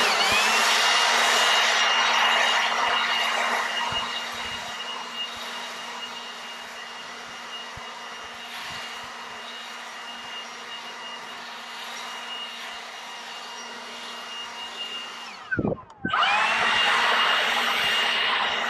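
Cordless Milwaukee leaf blower running at full speed: a steady electric-motor whine over a rush of air. The air noise grows quieter after a few seconds, and near the end the blower cuts off briefly and spins back up with a rising whine.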